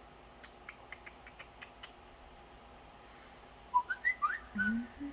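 A run of about eight light taps on a phone, then a short phone notification of quick whistle-like tones sliding up and down, near the end.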